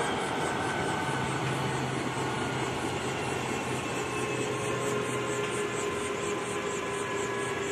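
Light helicopter running on the ground: a steady engine drone with steady whining tones and a fast, regular pulsing hiss above it.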